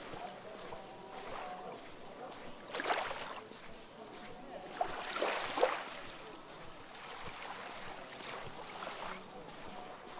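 Small waves washing in at the shore, two louder swells of hiss a couple of seconds apart over a steady low wash of water.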